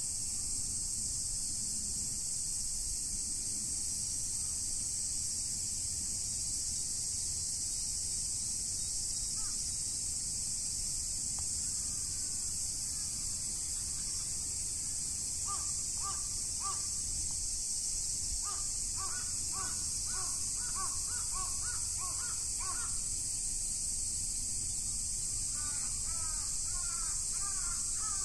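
Steady high-pitched insect chorus, with a bird calling in runs of short repeated calls, about two a second, from about halfway, and rising calls near the end.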